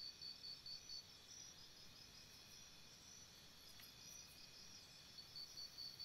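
Near silence with faint, regular insect chirping, like a cricket, that fades in the middle and returns near the end.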